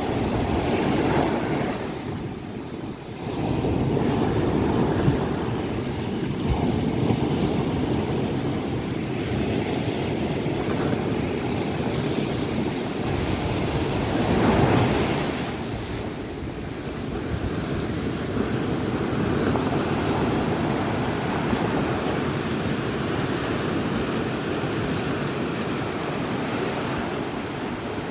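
Indian Ocean surf breaking and washing onto a beach, a steady rushing that swells and ebbs with each wave, with wind buffeting the microphone.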